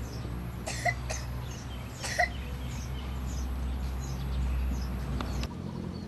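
Outdoor ambience: a steady low rumble of wind on the microphone, with a small bird chirping over and over, about twice a second. Two short, sharp sounds stand out, about one and two seconds in.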